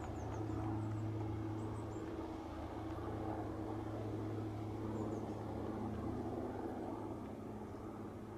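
Airbus NH90 military helicopter flying at a distance, its rotors and turbines a steady low drone with a held hum.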